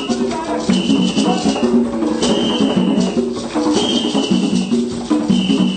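Live percussion music with maracas rattling over a steady, repeating rhythm. A high held note sounds for just under a second about every second and a half.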